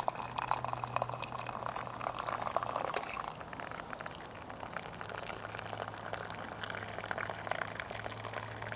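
Water for tea bubbling at the boil, a dense crackly fizz with a steady low hum underneath.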